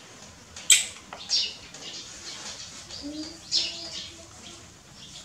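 Baby monkey giving a few short, high-pitched squeaks, the loudest about a second in.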